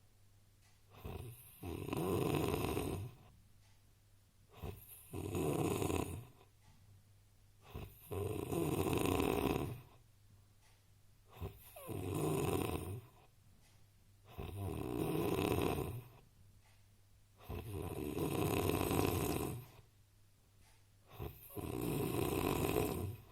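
A man snoring heavily in sleep: seven loud, rasping snores, each lasting one and a half to two seconds and coming about every three and a half seconds, with a short quieter breath between them.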